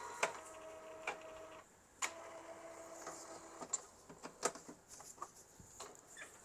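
Powered screwdriver whirring in two spells of about two seconds each, driving a screw into the plastic case of an Epson L805 printer, followed by a few light clicks and knocks of the tool and case.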